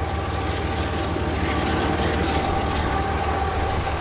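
Union Pacific diesel-electric locomotives on the rear of a loaded coal train, running under power. Their engines make a loud, even drone with a steady whine over it.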